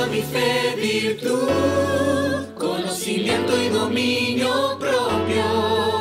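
Mixed choir of men's and women's voices singing a Christian song in Spanish, in short phrases over low held bass notes.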